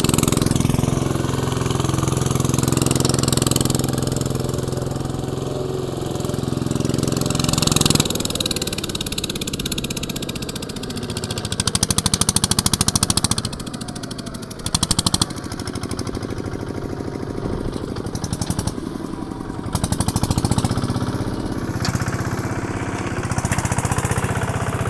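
Single-cylinder Kubota RT140 diesel engine of a two-wheel farm tractor running steadily with a fast, even chugging beat. The engine note changes abruptly about eight seconds in.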